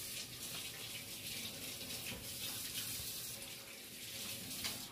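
Kitchen faucet running into a stainless steel sink while hands are washed under the stream, a steady hissing splash that stops near the end.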